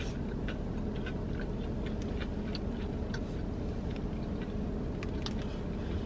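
Steady low hum inside a car cabin, with soft chewing and small scattered clicks of food containers and a plastic spoon being handled.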